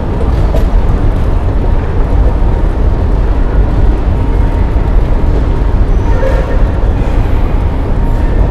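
Loud, steady low rumbling noise.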